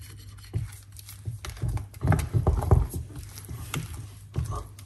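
Irregular soft knocks and scrapes of a utensil working thick fruit cake batter in a mixing bowl as it is folded.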